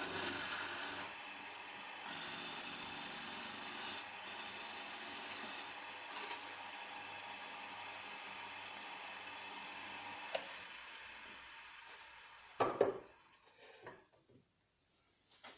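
Homemade chisel cutting a thin spindle on a running wood lathe, a steady hissing scrape of wood against steel over a faint motor hum. About ten seconds in the scraping fades away over a couple of seconds, followed by two sharp knocks.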